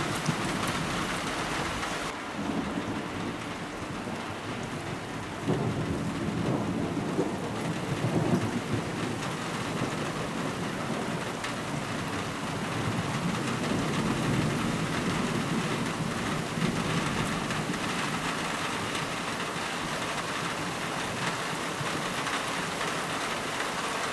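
Steady rain falling during a thunderstorm. About five seconds in, a roll of thunder rumbles for several seconds, with a fainter rumble later on.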